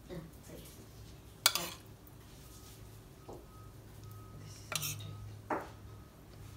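Metal spoon clinking and scraping against a ceramic plate as beans are spooned out. There are a few sharp clinks, the loudest about a second and a half in and two more near the end, over a faint low hum.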